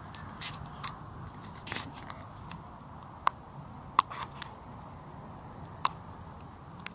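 Mountain bike ridden over paving: a steady low rumble of riding and wind noise, broken by several sharp clicks and ticks from the bike and the handheld camera.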